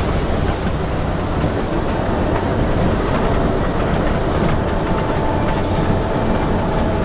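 Scania N94UB double-decker bus on the move, heard inside the upper deck: the engine's low running rumble with road noise and small rattling clicks from the body and fittings. A faint steady whine comes in about two-thirds of the way through.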